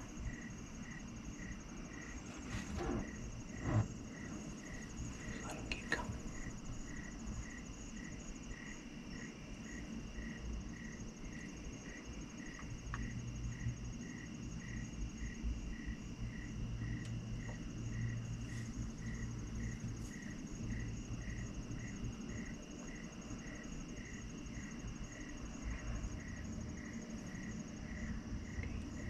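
Crickets chirping outdoors: one calls in short, even chirps at about one and a half a second, over a steady, higher-pitched insect trill.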